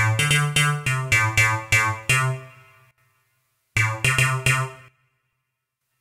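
Roland JD-800 software synthesizer playing a bright, percussive preset: a quick run of about eight struck notes over two seconds, each decaying, then a short burst of four more near the middle. The notes stop about a second before the end.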